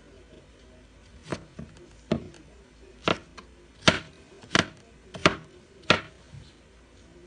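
Kitchen knife chopping on a cutting board: about seven separate strokes, a little under a second apart.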